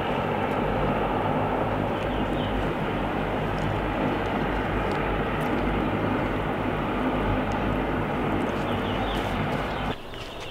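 Steady low drone of a propeller aircraft's engine, holding at one level without rising or fading, then cut off abruptly about ten seconds in.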